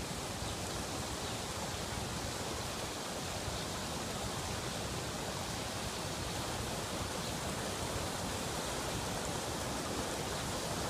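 Floodwater rushing steadily as a steady, even roar, flowing across a lawn and churning through a rock-lined culvert outlet during a flood.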